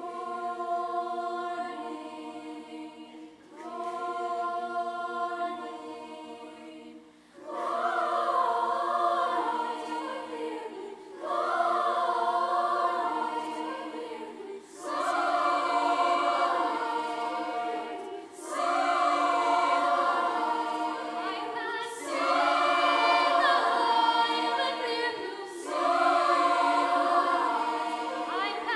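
Middle school mixed-voice show choir singing held chords in repeated phrases of about three to four seconds, each phrase swelling in afresh; the singing grows louder from about seven seconds in.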